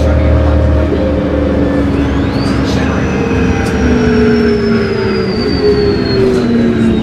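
Interior sound of a New Flyer C40LF bus on the move: its Cummins Westport C Gas Plus CNG engine and Voith 3-speed automatic transmission running, with a steady drone and whine. About halfway through, the engine tones and a high whine begin falling slowly in pitch.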